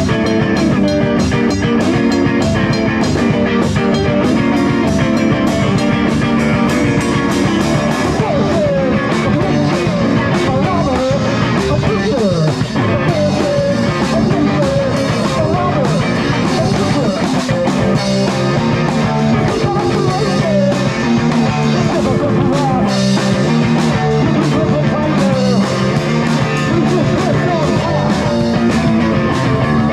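Rock music with guitar and a steady drum beat, with gliding pitched lines through the middle that may be singing or bent guitar notes.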